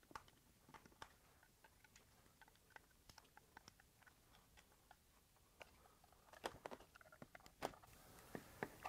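Faint, scattered clicks and taps of a DeWalt 20V tool battery's plastic case and lithium-ion cell pack being handled and pulled apart. The clicks come more often and louder in the last few seconds as the cell pack comes out of the case.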